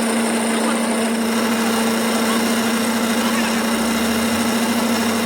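A workshop machine running steadily with a constant hum and a set of higher whining tones over a noisy background; a lower hum joins about four seconds in.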